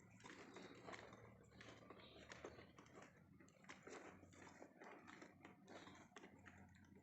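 Faint, irregular footsteps, several a second, over a low steady hum.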